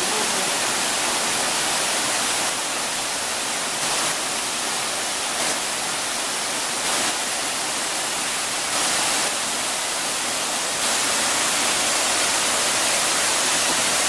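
Waterfall pouring over rock into a pool: a steady rushing hiss of falling water, with slight rises and falls in loudness.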